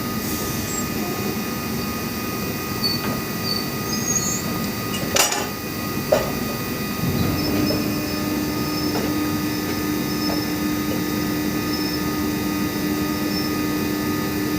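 Oil drilling rig machinery running steadily, with two sharp metallic clanks about five and six seconds in and a steady low whine that comes in about halfway through.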